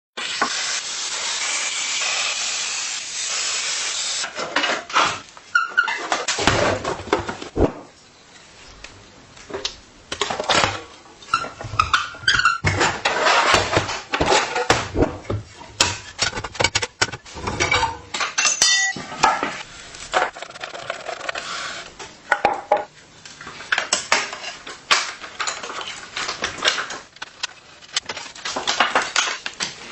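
Bicycle restoration workshop sounds: a steady hiss for the first four seconds or so, then irregular clinking, clanking and scraping of metal tools and parts, with a few brief metallic rings.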